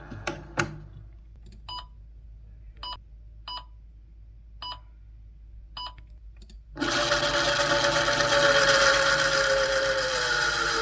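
Film sound effects: two sharp clicks, then a handful of short electronic beeps at uneven gaps, then a loud steady motorized whir starting about seven seconds in, its pitch dipping slightly near the end.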